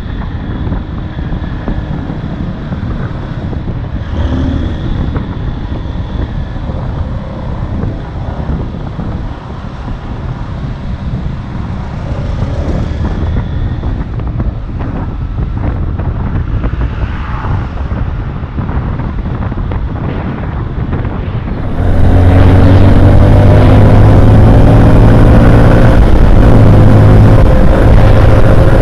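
Motorcycle riding in slow city traffic: road and wind noise with surrounding traffic and the bike's engine low underneath. About three quarters of the way through the sound jumps much louder, to a Kawasaki Z-series motorcycle engine running hard, its pitch climbing gently as it accelerates.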